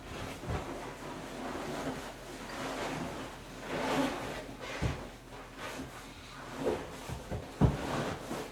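Handling noise of a seat cover being worked down over a car seat and its frame: rustling and rubbing, with three dull knocks, the loudest near the end.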